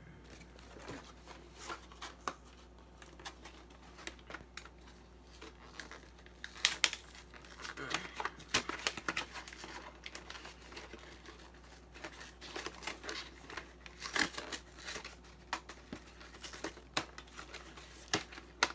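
Packaging of a cardboard Pokémon card collection box being torn open and crinkled by hand: irregular crackles and rips, busiest through the middle and again later on.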